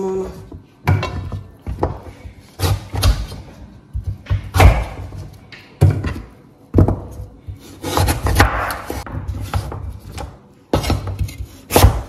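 Chef's knife cutting raw sweet potato into fry sticks on a wooden cutting board: irregular sharp knocks as the blade strikes the board, with softer scraping as pieces are moved across it between cuts.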